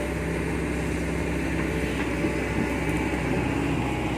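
Diesel engine of heavy machinery running steadily at constant speed, a low even hum with no change in pace.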